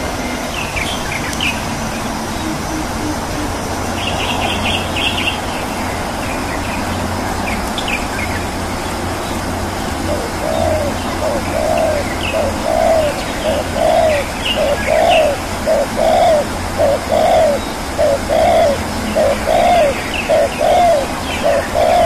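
Birds calling: scattered high chirps throughout, then from about halfway a low call repeated about twice a second, over a steady low hum.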